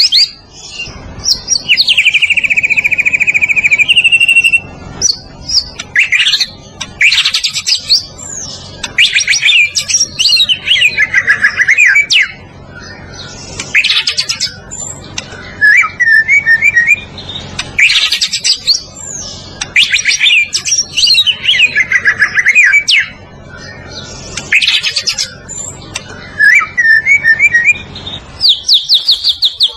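White-rumped shama (murai batu) singing loudly and continuously. Its varied phrases mix rapid trills, sweeping whistled notes and short chattering runs, with brief pauses between them.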